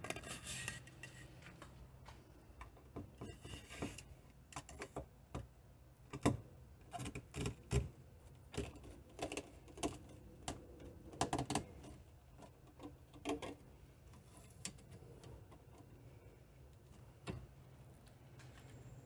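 Irregular light clicks, taps and knocks of a PVC pipe being handled and fitted up under an SUV's cargo-area roof, louder in small clusters, over a steady low hum.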